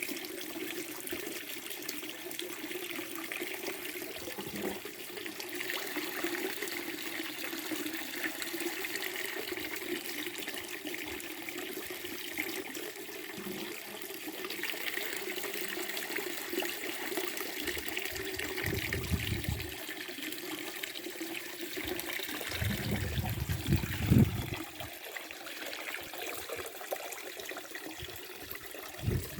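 Temple mineral spring water running steadily from its spout in a continuous trickling splash. A few low bumps come in the last third, the loudest about two-thirds of the way through.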